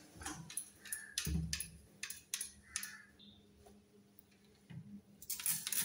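Hand-held trigger spray bottle being pumped: a run of short, faint clicking sprays over the first few seconds, a lull, then louder sprays near the end.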